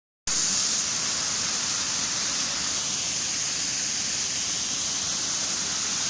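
Small waterfall cascading down over rocks: a steady, unbroken rush of falling and splashing water.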